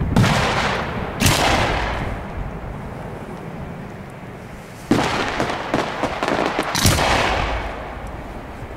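Aerial firework shells bursting: four loud bangs, two in the first second or so and two more about five and seven seconds in, each followed by a rolling echo that fades away, with light crackling between the last two.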